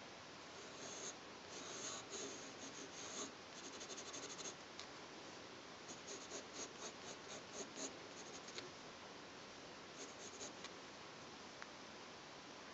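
Pencil shading on paper: quick back-and-forth hatching strokes in several runs, with short pauses between them, the strokes stopping a couple of seconds before the end.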